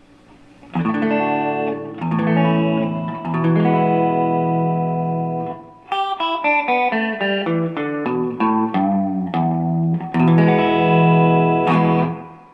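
Electric guitar played through a Nobels Sound Studio 1 preamp on its chorus setting. A few strummed chords are held and let ring, then a run of single picked notes steps down, and a last chord rings and fades near the end.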